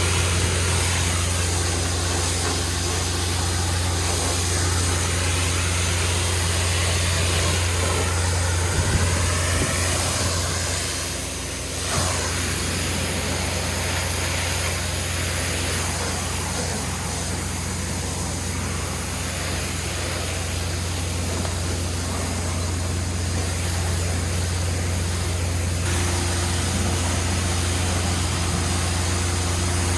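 Pressure washer's engine running steadily under an even hiss of water spray, dipping briefly just before twelve seconds in and then coming back.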